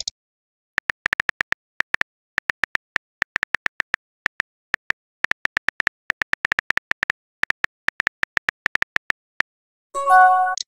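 Phone keyboard typing clicks, short ticks about six a second in quick runs with brief pauses, as a text message is typed out. Near the end, a short pitched chime as the message is sent.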